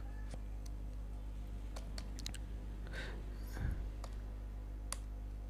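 Computer keyboard being typed on: slow, irregular keystrokes clicking one at a time, over a faint steady low hum.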